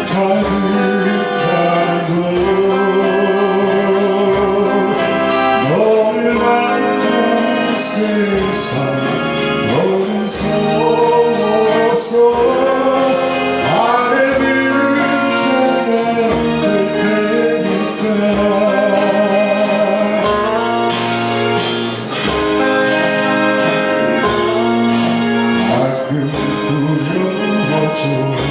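Live band performance: a lead vocal sung over keyboard or organ and drums, with a steady beat.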